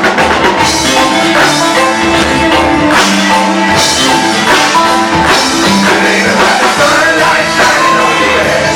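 Live band playing a rock song loudly with a full drum kit and guitar, with some singing over it.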